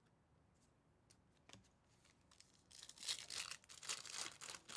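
Foil wrapper of a Topps Big League baseball card pack being torn open, a loud crinkly tearing that starts about three seconds in, after a couple of faint clicks.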